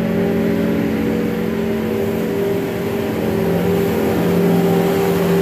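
Skid steer loader's engine running steadily, its pitch shifting slightly about four seconds in.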